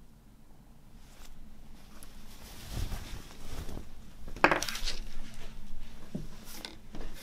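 A black cotton T-shirt being handled and spread out on a wooden table: fabric rustling and brushing, with a few light knocks, loudest in a brief swish about four and a half seconds in.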